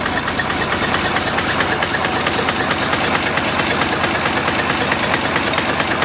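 Deutz BF12L413F air-cooled twin-turbo V12 diesel running steadily, with an even rapid clatter of about seven or eight beats a second. The owner says this engine has a knock somewhere near the front.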